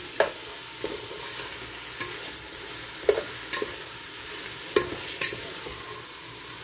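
Chicken pieces with onion, garlic and spices sizzling in an aluminium pressure-cooker pot, turned over with a wooden spatula that knocks and scrapes against the pot several times at irregular moments.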